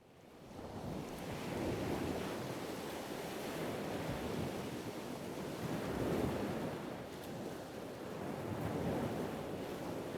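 Small waves washing on a beach shore: a steady wash that swells and eases every few seconds.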